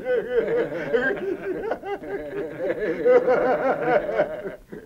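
Men laughing, a steady run of chuckling that breaks off near the end.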